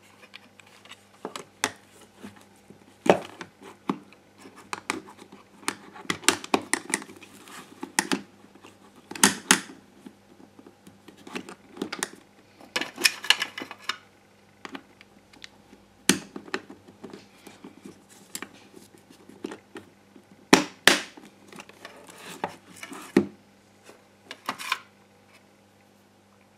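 Plastic housing of a ghd hair straightener being handled and fitted back together: irregular clicks, knocks and scraping of the plastic parts, stopping shortly before the end.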